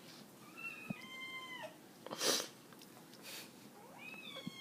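A kitten meowing twice, each meow high-pitched and drawn out, dropping in pitch at the end; the second starts near the end. Between them comes a short burst of noise.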